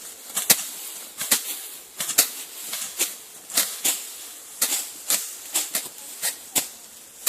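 Machete blade slicing through grass in repeated short, crisp strokes, coming unevenly at about two a second.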